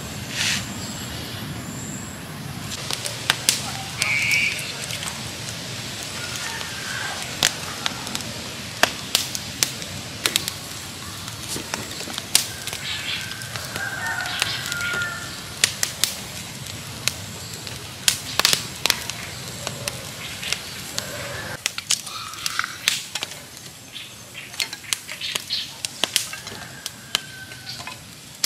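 Wood fire of split sticks burning around bamboo tubes, crackling with frequent sharp snaps and pops, along with knocks of firewood being laid on.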